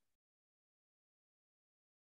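Near silence: the audio is gated to dead silence.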